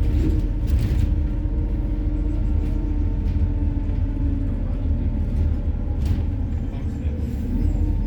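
MAZ-103 city bus running on methane, heard from inside the passenger cabin: a steady low engine and road rumble while driving, with a couple of short rattles about a second in and about six seconds in.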